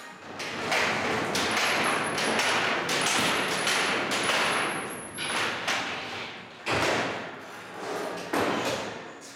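Vertical panel saw cutting a sheet of OSB: a steady rushing noise with a thin high whine for about six seconds, then two heavy knocks a little under two seconds apart.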